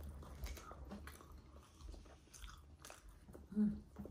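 Close-up chewing and biting into pieces of martabak manis, the thick sweet pancake, with soft, irregular crunchy clicks scattered through. A brief voice sound about three and a half seconds in.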